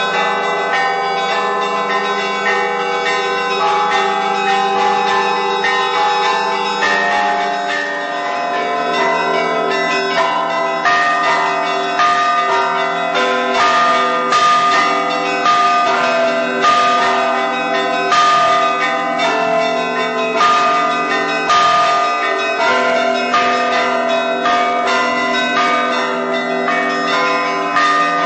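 Church bells ringing together in a peal, many bells struck over and over with their tones hanging on and overlapping; the strikes come thicker from about ten seconds in.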